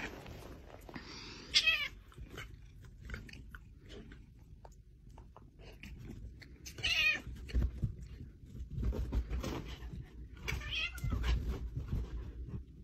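A domestic cat giving three short, wavering meows of protest while a dog mouths and nibbles at it, with soft nibbling, shuffling and bumping of the two animals on bedding.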